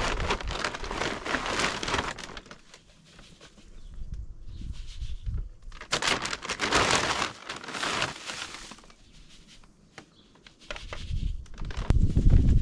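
Soybean meal being scooped and poured into buckets of milo grain: a dry, grainy rustling in three spells, the middle one fainter. A low rumble sets in near the end.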